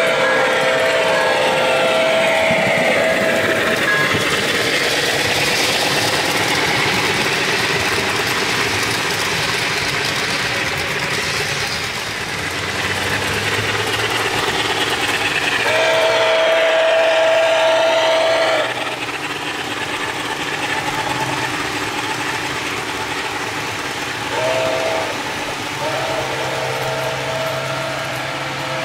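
Model train sound system blowing a chime whistle: one long blast at the start, another in the middle, a short toot and then a long blast near the end. Between the blasts the train's running sound plays steadily.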